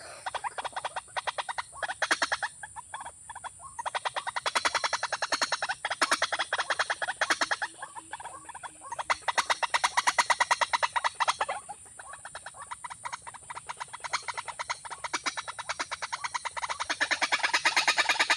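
A bird calling in rapid trains of clicking, croaking pulses, several phrases a few seconds long with short breaks between them, over a steady high-pitched whine.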